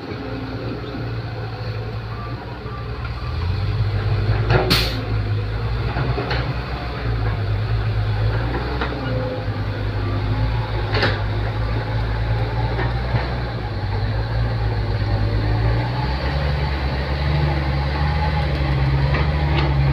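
Excavator's diesel engine running under load, its pitch and level stepping up about three seconds in and again near the end, with a few sharp knocks scattered through.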